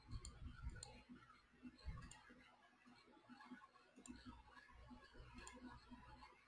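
Near silence with several faint computer mouse clicks spread across a few seconds.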